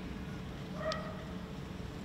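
A single short animal call about a second in, over a steady low background hum.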